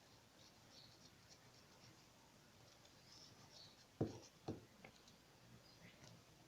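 Near silence with faint scratching, then two soft knocks about four seconds in, a half second apart.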